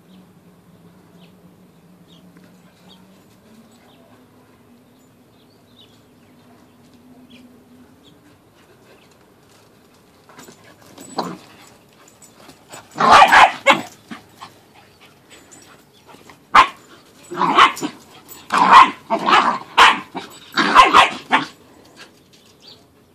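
Dog barking during rough play: a first bark about halfway through, then loud barks about a second apart over the last seven seconds.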